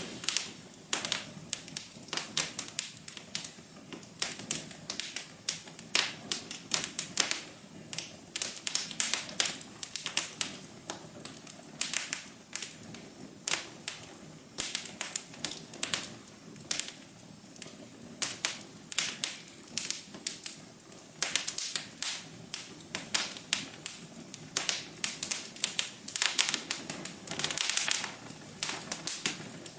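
Wood fire crackling in a fireplace: irregular sharp pops and snaps, several a second, some in quick clusters, over a soft steady low hum.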